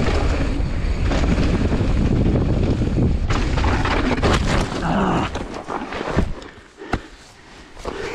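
Mountain bike riding fast down a dirt trail, with heavy wind rushing over the camera's microphone. After about five seconds the rush drops away and a few sharp knocks and clatters follow as the bike crashes.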